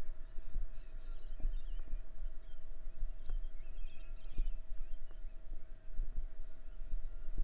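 Dog sulky rolling over a concrete footpath, heard through a camera mounted on the cart: a low rumble with irregular thumps as the wheels jolt over the pavement, under a faint steady tone. A few bird chirps about a second in and again near the middle.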